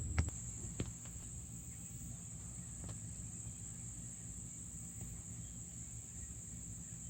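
Steady high-pitched trilling of crickets, with a faint low rumble underneath and a few soft clicks in the first few seconds.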